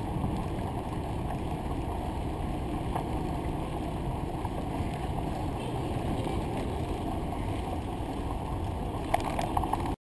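Steady wind and road rumble on the microphone of a camera riding along on a bicycle. A few sharp clicks about nine seconds in, then the sound cuts off suddenly.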